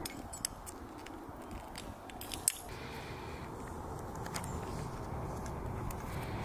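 Metal climbing gear (cams and carabiners racked on a harness) clinking in short, sharp clicks as the climber moves, with one louder clink about two and a half seconds in, over low steady background noise.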